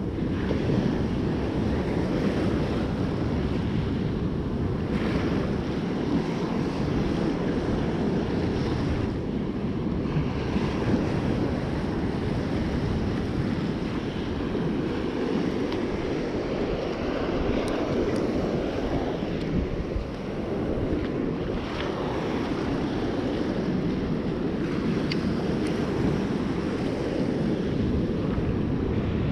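Rough storm surf breaking and washing up the sand, with wind buffeting the microphone: a steady, deep rushing noise with no letup.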